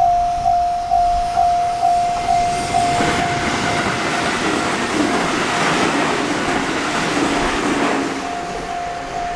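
Japanese level-crossing alarm bell ringing its steady 'kan-kan' a little over twice a second. About three seconds in, a JR Tokaido Line train passes over the crossing and its rushing wheel and running noise swamps the bell for about five seconds. The bell is heard plainly again near the end.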